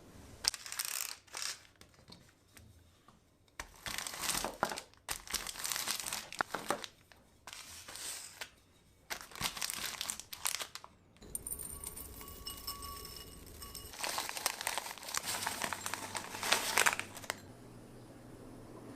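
Plastic packaging crinkling and rustling in irregular bursts as it is handled, with a short lull about two-thirds of the way through.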